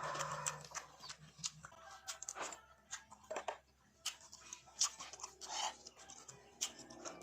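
Tamarind being eaten: irregular crisp crackles and clicks as the brittle pods are broken open and chewed.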